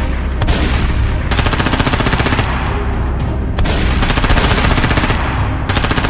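Dubbed-in machine-gun fire: several bursts of rapid automatic shots, each lasting about a second, with short gaps between them.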